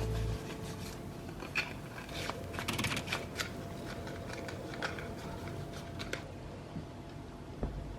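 Soft rustling and small clicks and taps of a phone box and its packaging being handled, densest between about two and a half and three and a half seconds in. Background music cuts off just after the start.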